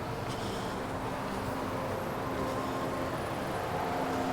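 Street traffic ambience: a steady hum of passing vehicles and engines.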